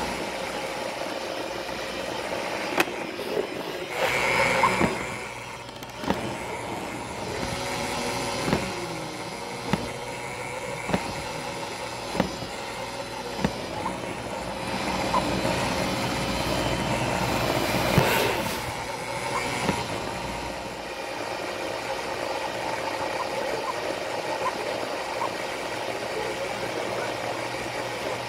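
Roomba robot vacuum running: a steady motor and brush whir with a faint whine. Sharp clicks come about every second and a quarter from about 6 to 15 seconds in, and the whir swells louder twice, around 4 seconds and 16 to 19 seconds in.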